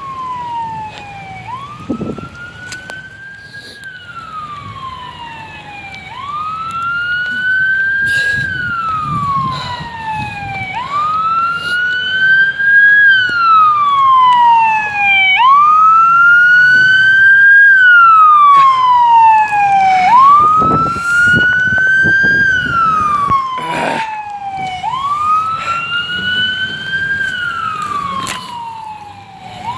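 Emergency vehicle siren wailing, its pitch rising slowly and then falling in a cycle of about four to five seconds. It grows louder about six seconds in, is loudest in the middle, and drops back somewhat near the end.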